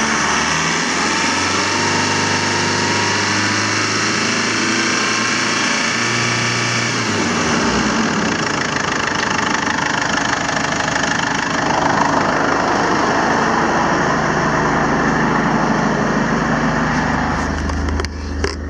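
Mazda BT-50's 2.5-litre WL four-cylinder turbodiesel running at high revs, steady and loud; its low tone changes about seven seconds in.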